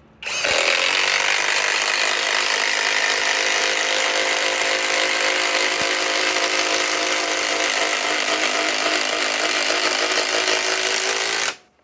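Kobalt 24-volt right-angle impact wrench hammering a 6-inch TimberLOK screw into timber. It runs steadily for about eleven seconds and stops abruptly near the end as the screw is driven home.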